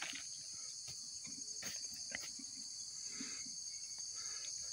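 Steady high-pitched insect chorus, with a few faint clicks and rustles from someone moving through undergrowth, the sharpest click right at the start.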